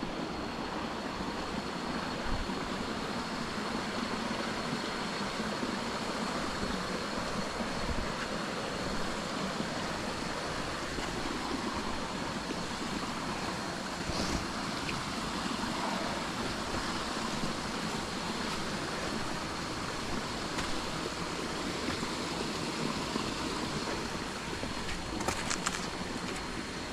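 A jungle creek's water rushing steadily, with a thin, steady high tone above it.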